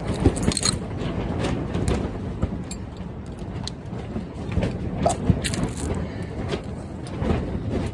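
Irregular metallic clicks and clinks of a ratchet and socket extension being worked on steering gear box bolts, over a steady low rumble.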